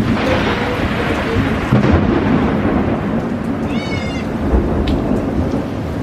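Thunder rumbling through steady heavy rain, with the rumble swelling at the start. A short, high, wavering animal call sounds once about four seconds in.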